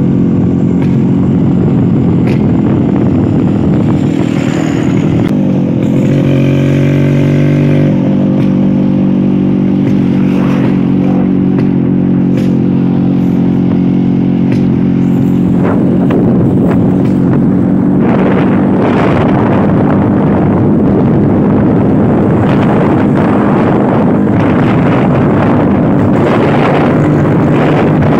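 Old two-stroke Vespa scooter engine running steadily on the road. Its pitch dips and climbs back between about five and eight seconds in. Wind and road noise grow louder over the second half.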